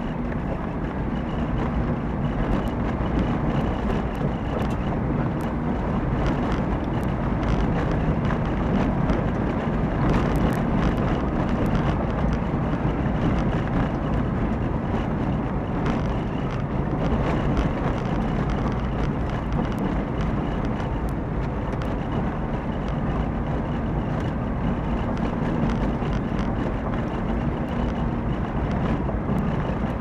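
A car driving along a forest road, heard through an in-car dashcam: a steady engine hum and tyre and road noise, with scattered small clicks and knocks throughout.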